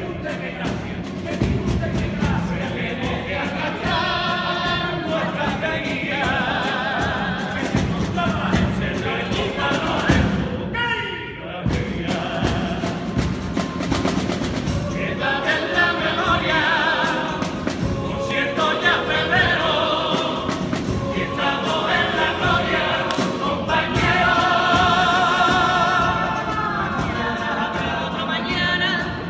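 Carnival group of male voices singing a popurrí together in several voices, as a choir.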